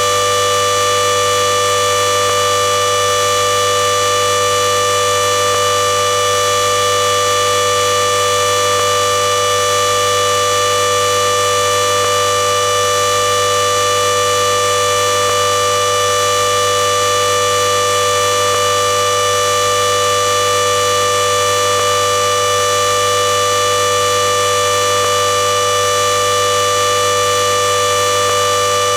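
Washing machine drum at full spin speed, a loud, unchanging whine made of several steady tones over a low hum and an even rushing noise.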